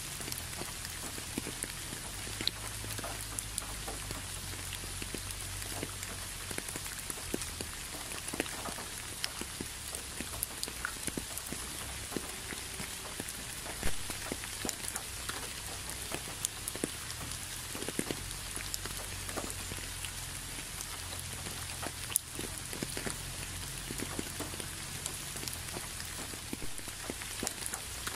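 Steady rain falling: an even hiss with many close drops striking in irregular sharp taps, one louder tap about halfway through.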